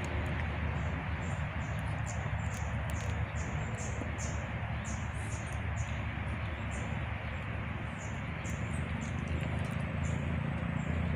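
Riverside ambience: a steady hiss with a low rumble, and short high-pitched chirps from a small creature repeating about twice a second.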